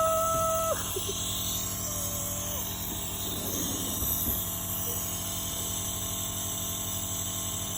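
Nebulizer's compressor running with a steady hum.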